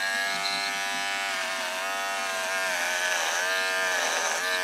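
Electric hair clipper running with a steady buzz. Its pitch dips briefly a few times as the blades are pressed into the beard and cut.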